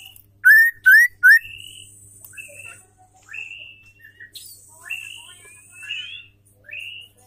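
Female white-rumped shama calling: three loud, quick rising whistles about half a second in, then a string of short whistled notes and chirps, with two longer high buzzing sounds.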